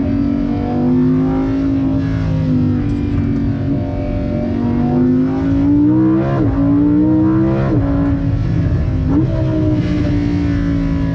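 Lamborghini Huracán Evo's naturally aspirated V10 accelerating hard: the engine note climbs and then drops sharply at three quick upshifts in the second half.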